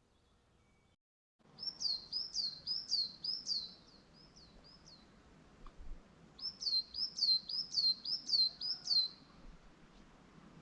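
A songbird singing two phrases of rapidly repeated, high, down-slurred whistled notes, about three a second, the first phrase trailing off softer at its end. Faint steady background hiss lies underneath.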